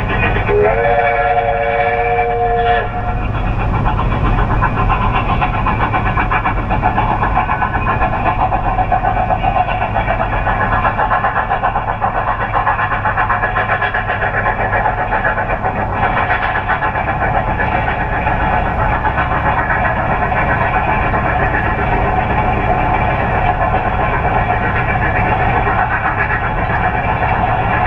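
Train whistle blowing one chord of several notes, sliding up into pitch and held for about two seconds near the start. After it comes a steady mechanical rumble and hum.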